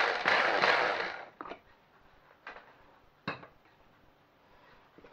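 Bamix hand blender motor whirring on its small grinder attachment as it chops fresh coriander, stopping a little over a second in. A few light knocks follow as the motor unit is lifted off and the plastic bowl is handled.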